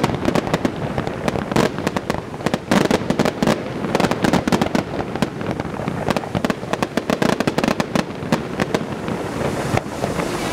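Fireworks display: aerial shells bursting in a rapid, unbroken run of bangs and crackles, many per second.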